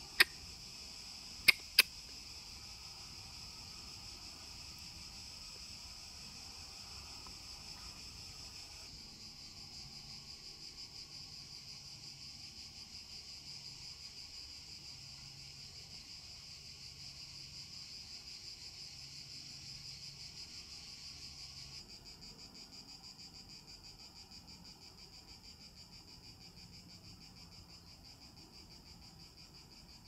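Dense, steady chorus of cicadas buzzing, finely pulsing, which grows fainter for the last third. Three sharp clicks at the very start, two of them close together about a second and a half in.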